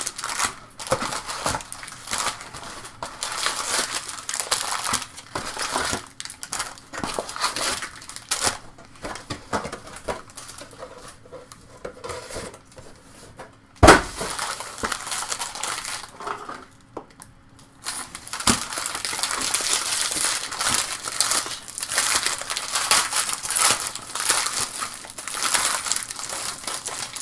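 Foil wrappers of trading card packs crinkling as the packs are handled and opened, with a single sharp knock about halfway through.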